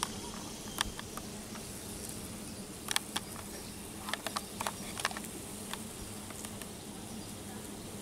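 Eastern cicada killer wasps (Sphecius speciosus) buzzing in flight around the ground where they nest, a steady low-pitched buzzing. A few short sharp clicks are scattered through it.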